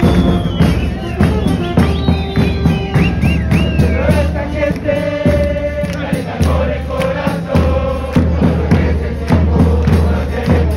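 Crowd of football supporters chanting and singing together in chorus, with drums beating a steady rhythm underneath.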